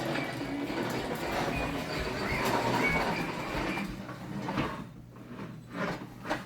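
A child's vacuum cleaner being pushed across the floor: a rattling rolling noise for about four seconds that then drops to faint scattered clicks.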